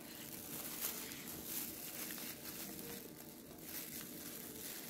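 Faint crinkling of plastic wrapping and a plastic cup being handled, with a few brief rustles, as party blowers are pushed into the cup.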